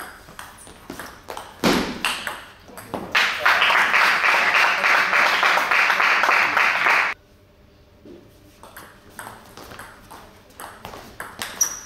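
Table tennis ball clicking off the rackets and the table during a rally. About three seconds in comes a loud, even rush of noise that lasts about four seconds and cuts off suddenly. More ball clicks follow near the end as the next rally starts.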